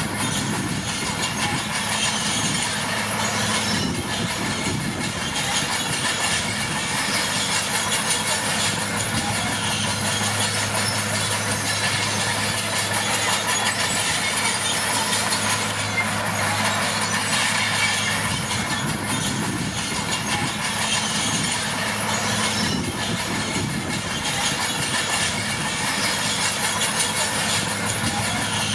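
Komatsu D41P crawler dozer working: its diesel engine runs with a steady low hum while the steel tracks clatter and squeak continuously.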